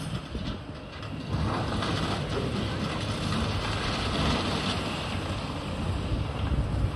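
Demolition machinery at work: a Komatsu long-reach demolition excavator's diesel engine and hydraulics running steadily, mixed with the rumble and rattle of broken concrete and rubble coming down. The noise gets louder about a second and a half in.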